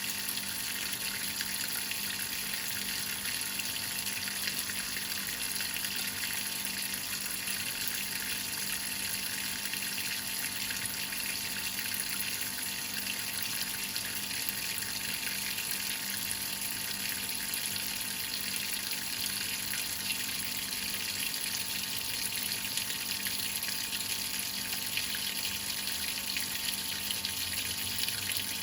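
Whirlpool top-load washing machine with water running steadily into the tub as it fills.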